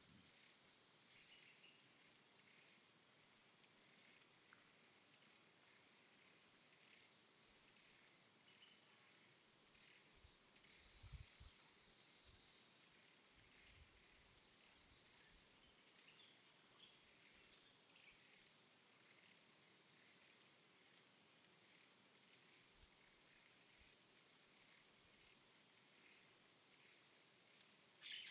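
Near silence: a faint steady high-pitched hiss with scattered faint chirps, and a couple of soft low knocks around the middle.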